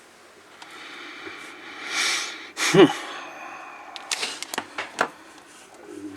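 A man exhales heavily, then makes a short wordless vocal sound that rises and falls in pitch, followed by several sharp clicks.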